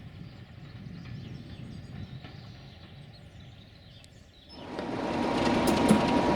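Low wind noise, then about four and a half seconds in a train's running noise comes in suddenly and loud: a Class 33 diesel with empty coaches, wheels on the rails with clicks and a steady thin whine.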